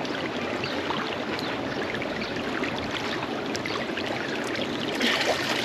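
Pool water lapping and splashing as a person swims through it, with many small droplet splashes. It grows louder near the end as the swimmer comes close.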